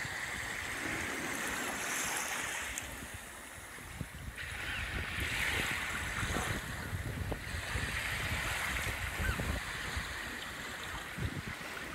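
Surf washing up onto a sandy beach, the wash swelling and easing every few seconds, with wind rumbling on the microphone.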